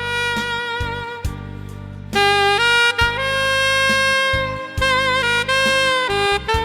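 Saxophone playing a slow ballad melody in long held notes with vibrato, over a backing track with a steady beat.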